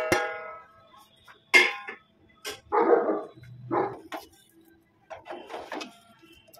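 A steel bowl clinks against a stainless steel pan, ringing briefly, then a few short, loud, bark-like calls sound in the middle. Near the end comes the softer clatter of a steel ladle stirring through thick sewai kheer in the pan.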